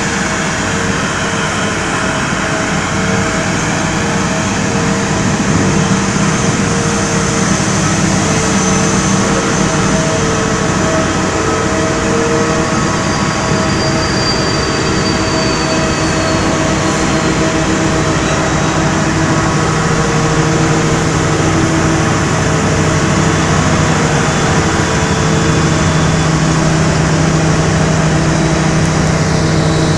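Airport ramp machinery around a parked airliner running in a steady loud drone, with several steady whining tones layered in it. A faint high whine falls slightly about halfway through.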